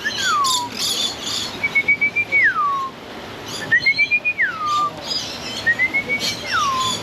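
A clear whistled call, a short wavering note sliding down into a long falling glide, repeated four times about every two seconds, over scattered high chirping of birds.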